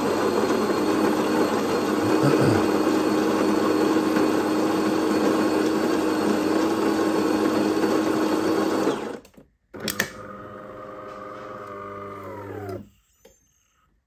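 De'Longhi Magnifica ECAM 22.110's built-in burr grinder running steadily, grinding coffee beans, and stopping about nine seconds in. After a click, a quieter motor runs for about three seconds as the brewing unit is driven into a new position, its pitch dropping as it stops.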